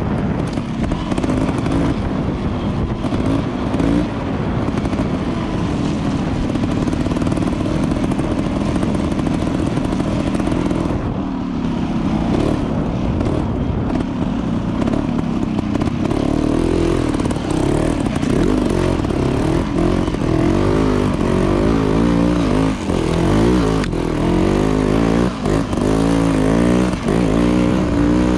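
Off-road motorcycle engine being ridden hard, revving up and down over and over with quick throttle changes, more sharply in the second half.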